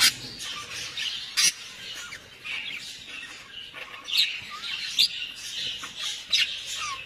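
Birds calling: a busy chatter of short high chirps, with about five sharp, louder calls spread through it.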